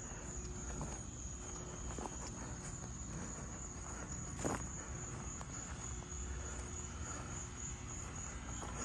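Insects trilling in one steady high-pitched band, with a single sharp click about halfway through and a few fainter ticks.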